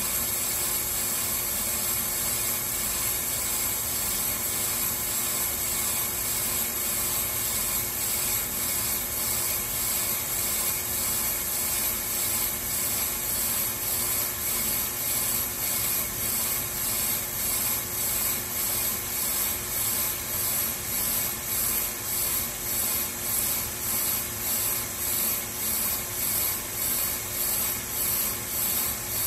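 Bench brake lathe's twin cutting bits shaving the faces of a spinning brake rotor, resurfacing it to true up the warp. A steady scraping hiss that pulses evenly about one and a half times a second, more strongly in the second half.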